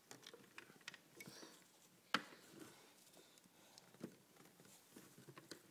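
Near silence with a few faint clicks, the sharpest about two seconds in and another about four seconds in: a plastic toy telephone being handled.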